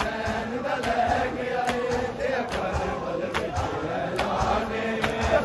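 Group of men chanting a noha in unison, kept in time by rhythmic matam: open-hand strikes on bare chests landing together a little faster than once a second.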